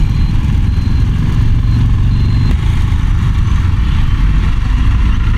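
Motorcycle engine running as the bike rides slowly through traffic, heard from the rider's seat as a loud, steady low rumble.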